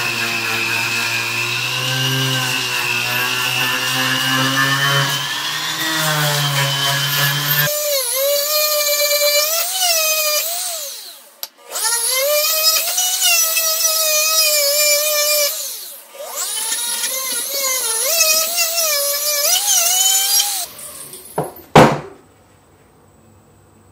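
Handheld rotary tool spinning a buffing wheel against a silver spoon's bowl, polishing it: a loud high-pitched whine that wavers in pitch, breaks off twice and stops near the end. A couple of sharp clicks follow just after it stops.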